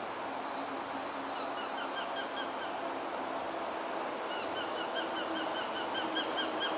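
Japanese sparrowhawk calling in a rapid series of short, sharp repeated notes, about six a second: one short bout about a second and a half in, then a longer, louder bout from about four seconds in. These are calls exchanged around a courtship prey pass between male and female.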